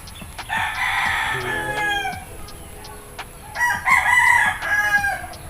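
Two long, loud animal calls, each about a second and a half and falling in pitch at the end.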